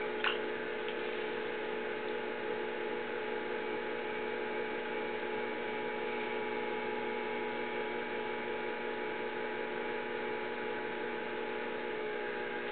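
Electric potter's wheel running at a steady speed, its motor giving a constant hum, while wet porcelain clay is centred by hand on the spinning wheelhead.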